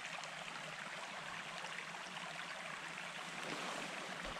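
Small creek running over rocks, a steady water sound.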